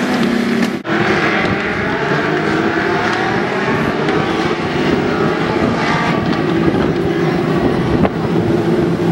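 A pack of Legends race cars running at racing speed, their Yamaha motorcycle engines overlapping in a dense, continuous drone with pitches that shift as cars pass. A brief dropout about a second in.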